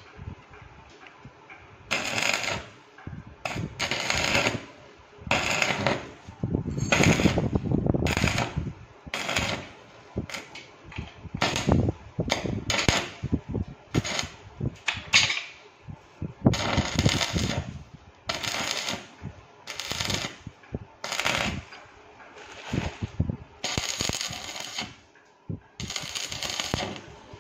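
Stick arc welding on steel square tubing: the arc crackles and sizzles in repeated short bursts of about a second each, more than a dozen of them, with brief pauses between.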